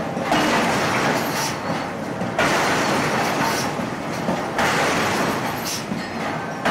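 Heavy power forging hammer's machinery running: a rough rushing mechanical noise that surges suddenly about every two seconds, four times, each surge fading before the next, with no hammer blows landing on the work.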